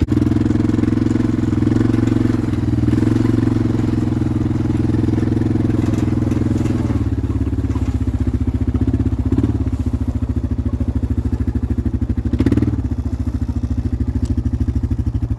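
Small vehicle engine running steadily while driving, its note changing about seven seconds in.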